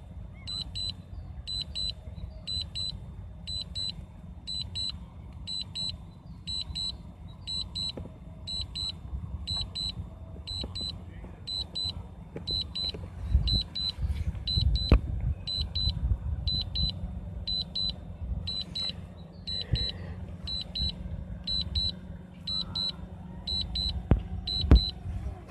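Drone remote controller beeping its return-to-home alert: short high triple beeps repeating about one and a half times a second, the signal that the drone is flying itself back to the home point. Underneath is a low rumble with a few sharp thumps, loudest about halfway through and near the end.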